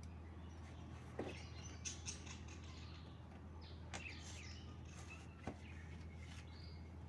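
Small birds chirping faintly, with a few sharp clicks scattered through, over a steady low hum.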